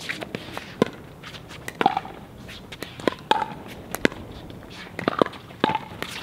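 Pickleball paddles striking a plastic pickleball in a rally of soft shots at the net: sharp hits about once or twice a second, uneven in loudness.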